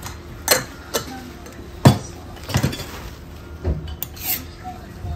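Metal spatulas clanking and scraping on a steel teppan griddle as a lump of fat is pushed around to grease the hot plate. There is a series of sharp clanks and scrapes, and the loudest comes about two seconds in.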